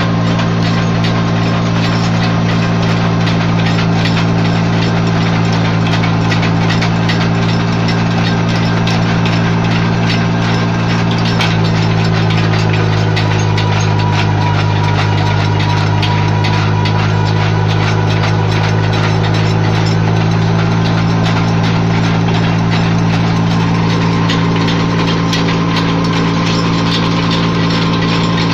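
Farm tractor's diesel engine running steadily at an even speed, with a faint steady whine above the engine note.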